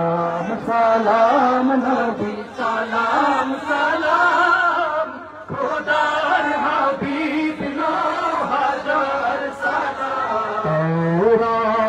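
Devotional Islamic chanting (a gojol or naat in praise of the Prophet), sung in long, held melodic lines that bend and waver in pitch.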